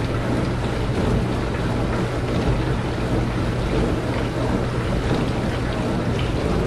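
Dishwasher wash motor running in the wash cycle, spraying water around the tub: a steady hum under a constant rush of water.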